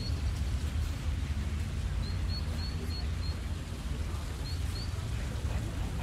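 Park ambience: a steady low rumble with the faint, distant voices of a small crowd. A bird chirps a run of short high notes about two seconds in and twice more near the five-second mark.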